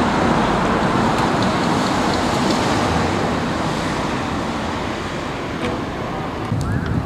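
Steady rush of road traffic noise, easing off slightly over several seconds.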